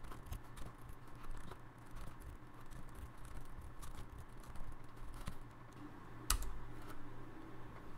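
Quiet computer keyboard typing: scattered keystroke clicks as numbers are entered, with one louder key press about six seconds in.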